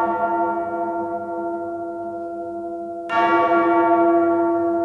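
A bell ringing and slowly dying away, struck again about three seconds in.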